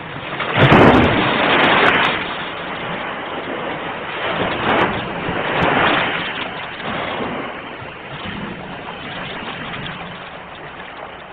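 Sea waves breaking and washing: one big surge about a second in, two smaller surges near the middle, then a quieter steady wash.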